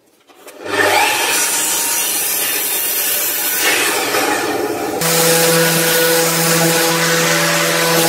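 A Festool sliding compound miter saw starts up about half a second in and crosscuts a strip of wood. A little past halfway it gives way abruptly to a Festool random orbital sander running steadily with a low hum, sanding the wood.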